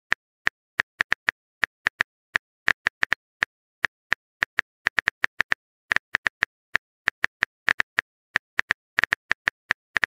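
Smartphone keyboard typing sound effect: short, sharp taps at an uneven pace of about four a second, as the next text message is typed out.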